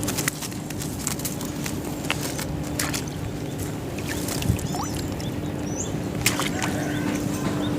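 Outdoor background with a steady low hum and scattered light clicks, plus a few short high chirps.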